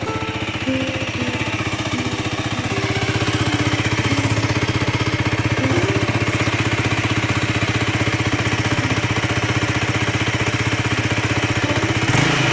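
Race GSR 125 motorcycle engine idling steadily, heard close to its exhaust muffler as a rapid, even putter.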